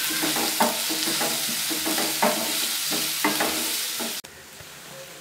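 Shredded cabbage and carrot sizzling in a nonstick frying pan as they are stirred with a wooden spatula, the stirring strokes coming about once a second. About four seconds in, the sound cuts suddenly to a much quieter sizzle.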